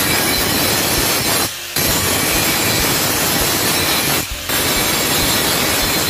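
Electric angle grinder with an abrasive disc grinding rust off a steel shovel blade: a loud, continuous grinding noise that eases twice for a moment, about a second and a half in and again about four seconds in.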